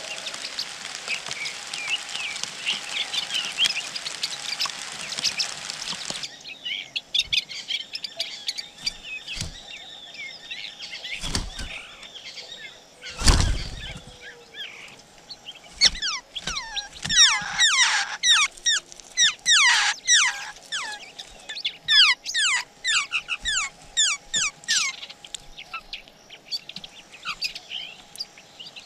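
Laughingthrush nestlings begging: rapid runs of high chirps that sweep downward, dense through the second half. A steady hiss fills the first few seconds and stops abruptly, and a loud dull thump comes about halfway through.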